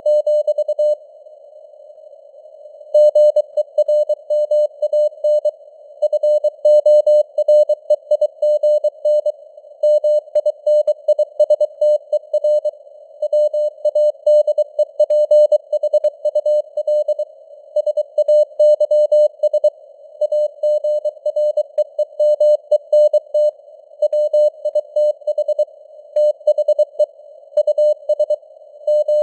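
Morse code (CW) keyed at 23 words per minute as a single mid-pitched beep switching rapidly on and off, inside a narrow band of simulated radio noise, with the signal strength fading up and down (QSB). The keying pauses for about two seconds near the start, then runs on steadily.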